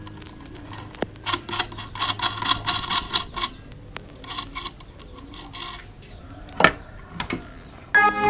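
A quick run of small mechanical clicks and taps lasting about two seconds, then a few separate knocks, one of them sharp and loud near the end.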